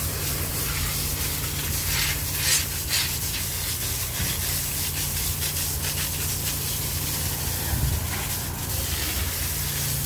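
High-pressure water jet hissing as it sprays against steel rebar and concrete, over a steady low machine hum. A few short scraping rattles come about two to three seconds in and again near the end.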